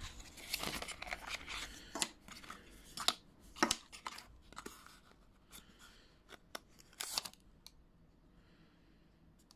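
Small cardboard box being opened and handled, rustling, with scattered sharp clicks and taps as the two plastic mount pieces come out and are set down on a wooden worktop. The last couple of seconds go quiet.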